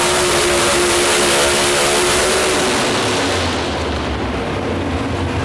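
Outlaw 4x4 pulling truck's engine running hard at full throttle as it drags a weight-transfer sled. About three and a half seconds in the throttle comes off at the end of the pull, and the engine drops to a lower, steady rumble.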